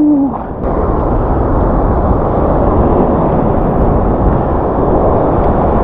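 Surf waves rushing and sloshing around a wading angler, a loud steady wash of water. It is muffled through a waterproof camera housing that has no external mic.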